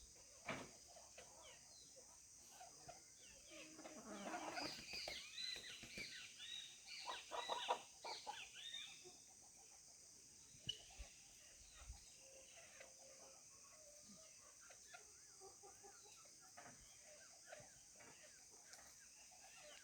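Chickens clucking and calling, with a busy flurry of calls from about four to nine seconds in, then only scattered faint clucks.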